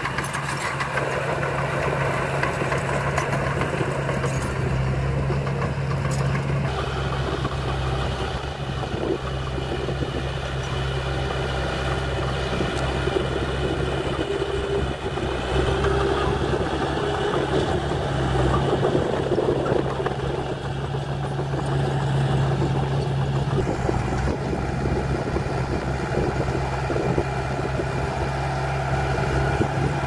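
Small crawler bulldozer's diesel engine running steadily as it pushes a pile of soil with its blade.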